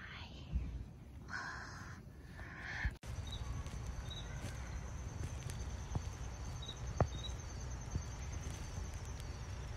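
Insects trilling outdoors in a steady high pulsing tone over a low steady rumble, with a couple of sharp clicks. In the first three seconds a few brief rustling noises come before the trilling starts.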